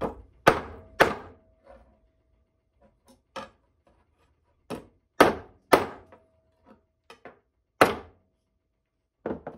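Claw hammer striking metal: about eight sharp, irregularly spaced blows with a few lighter taps between them, some leaving a brief faint metallic ring.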